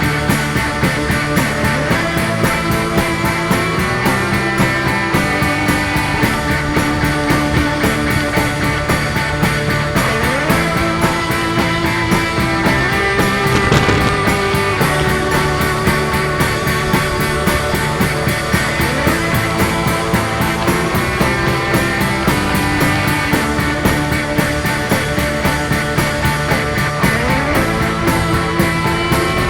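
Rock music with electric guitar and a steady fast beat.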